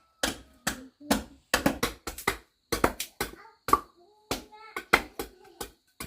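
Hand tool striking wood in an irregular run of sharp knocks, two or three a second.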